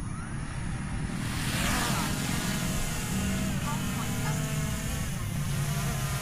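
Quadcopter drone's motors and propellers spinning up about a second in as it takes off, rising in pitch, then a steady whine of several pitches.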